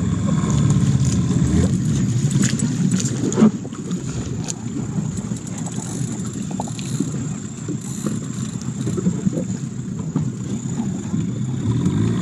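Mercury outboard motor on a small inflatable boat running, with water noise against the hull. About three and a half seconds in there is a knock and the motor drops back to a lower, quieter running, then it speeds up again near the end.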